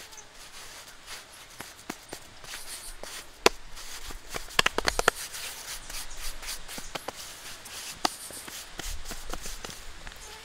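Hands patting and smoothing wet mud, heard as scattered wet slaps with a quick run of about half a dozen pats about halfway through.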